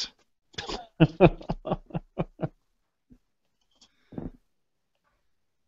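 A man laughing over a video-call line: a run of short, evenly spaced bursts of about four or five a second, then one more brief burst about four seconds in, with the line cutting to silence in between.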